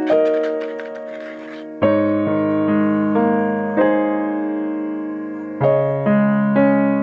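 Background music on an electric piano: slow notes and chords, each struck and left to fade, with a soft hissy texture in the first second or so.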